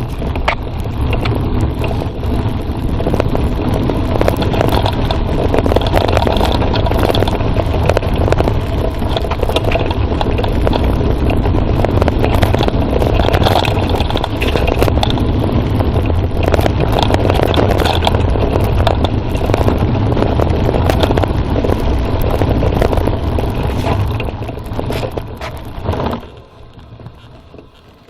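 Wind buffeting a handlebar-mounted phone's microphone and a mountain bike rattling over a bumpy dirt forest trail at speed, with many small knocks from roots and stones. The noise drops off sharply near the end as the ride slows.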